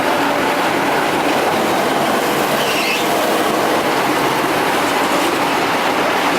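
V-1200S radiator recycling machine running steadily, a dense continuous mechanical noise with no break, as it works on scrap radiators to separate the copper.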